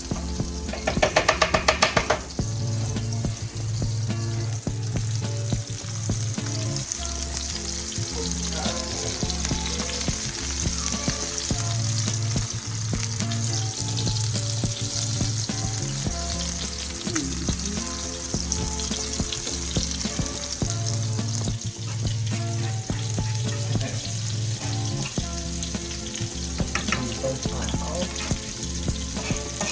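Food sizzling in a frying pan, with music playing underneath. A loud buzzing burst comes about a second in and lasts about a second.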